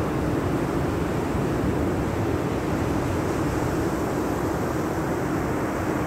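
Steady rushing of sea surf breaking on a sandy shore, with wind rumbling on the microphone.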